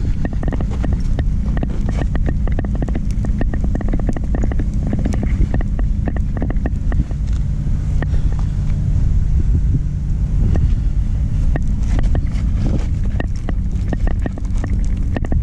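Steady engine idle rumble, with frequent small clicks and knocks of hand tools at work on a truck tire puncture plug.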